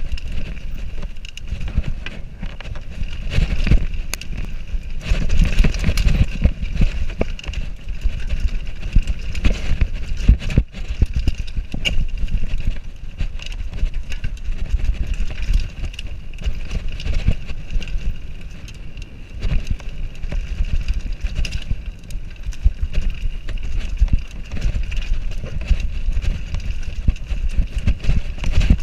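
Downhill mountain bike rattling and clattering over a rough dirt trail, with tyre rumble and wind rush on the bike-mounted camera and a dense run of knocks from the bike over roots and rocks.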